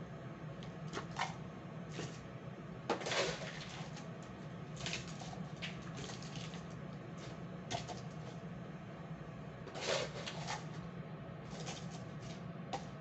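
Scattered light clicks and knocks, the loudest about three seconds and ten seconds in, over a steady low hum.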